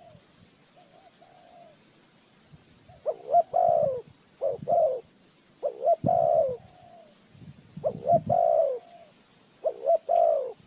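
Spotted dove cooing: a faint coo about a second in, then a run of loud two- and three-note coo phrases every second or two.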